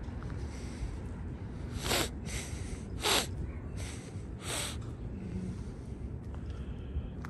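Five short, breathy sniffs or exhales close to the microphone, between about two and five seconds in, over a steady low rumble.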